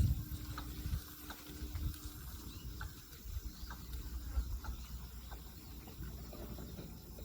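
Watercock calling from a distance, a scattering of short notes over low rumble on the microphone.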